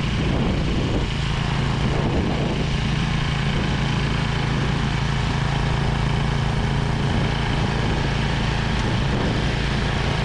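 Troy-Bilt Horse rear-tine tiller's engine running steadily under load as its sharpened tines churn through dense clay soil.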